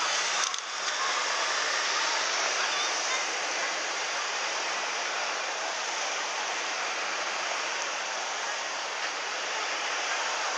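Steady, even rushing hiss of outdoor street ambience beside a road with cars going by, with a short click about half a second in.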